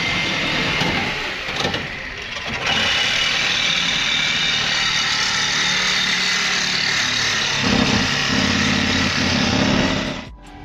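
Steady mechanical noise of a running motor, with a dense hiss and a low hum that grows stronger about eight seconds in, then cuts off just before the end.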